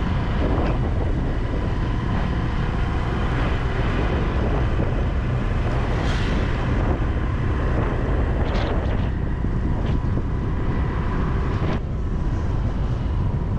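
A vehicle on the move: wind buffeting the microphone over a steady engine rumble, with a faint steady whine.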